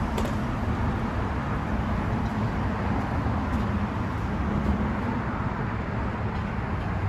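Steady low rumble of vehicle traffic going by outdoors, with no sharp events.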